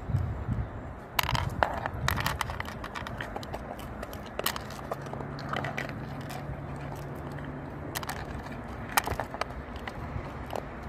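Small shaggy dog eating from a plastic bowl: irregular crunches and sharp clicks of chewing and of its muzzle against the bowl. A low steady hum runs through the middle few seconds.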